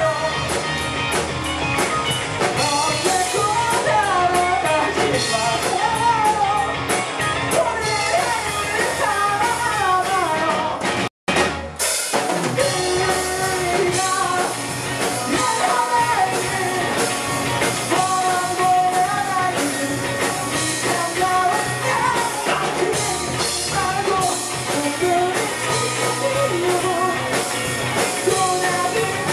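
Live rock band playing, with a vocalist singing over electric guitar, bass and drum kit. The sound cuts out completely for a split second about a third of the way through, then the song carries on.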